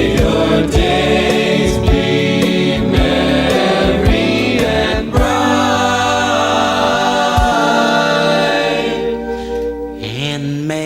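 Band music with choir-like singing over a drumbeat; about halfway the drums drop out and a held chord rings on, fading away near the end before new music begins.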